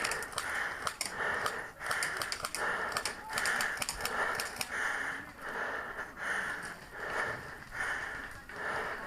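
A person panting heavily close to the microphone, a steady rhythm of hard breaths in and out, with a few faint clicks.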